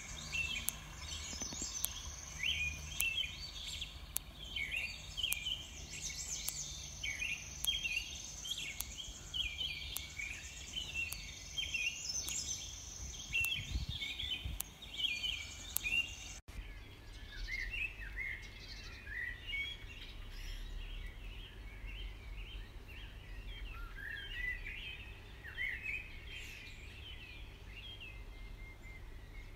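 Wild birds singing: many short chirps and trills overlapping, with a low rumble underneath. The sound changes abruptly about halfway through, and birdsong carries on after the change. Faint regular ticks about once a second run through the first half.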